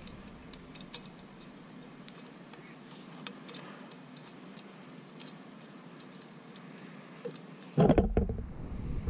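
Small metal clicks and light taps of Weber 32/36 carburetor parts being handled as the float hinge pin is slid into place, with a louder, duller low sound of handling starting near the end.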